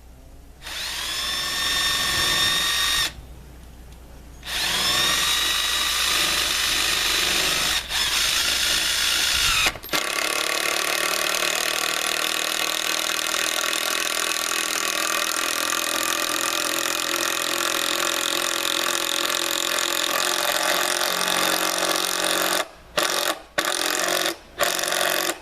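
Electric power drill running under the trigger: two short runs that each wind up to speed, then one long run of about twelve seconds, then several brief trigger pulses near the end.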